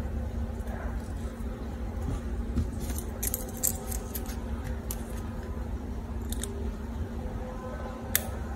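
Plastic drinking-straw pieces handled on a tabletop: scattered light clicks and ticks, a small cluster about three seconds in and single ones later, over a steady low hum.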